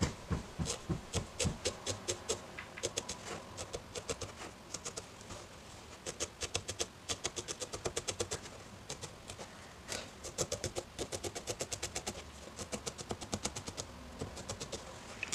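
Felting needle stabbing repeatedly into wool roving, a run of quick soft pokes at about four to five a second, pausing briefly now and then.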